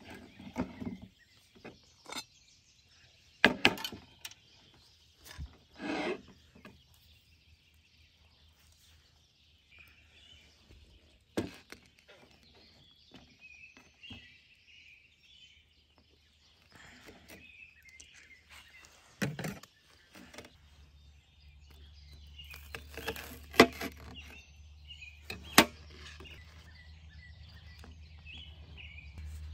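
Scattered knocks and clatters of a pie iron and a toasted sandwich being handled on a plastic cutting board, a few of them sharp and loud. Birds chirp faintly in the background, and a low rumble builds in the last third.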